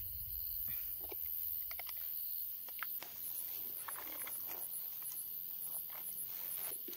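Steady high-pitched insect chirring, with faint, scattered short clicks and taps.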